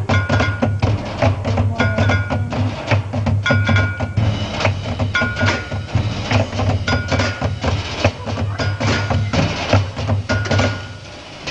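Marching band playing a percussion-heavy passage: rapid, sharp wood-block-like strikes and short ringing mallet-percussion notes over a steady low tone. The music drops away briefly near the end.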